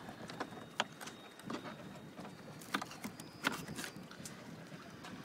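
Knife chopping a whole ladyfish into bait chunks on a cutting board, with a handful of sharp, irregular knocks as the blade goes through the fish and strikes the board.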